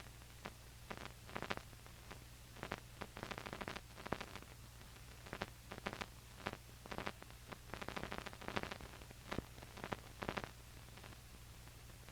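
Faint crackle and surface noise of an old archival recording: irregular sharp clicks in clusters over a steady low hum, with no music playing.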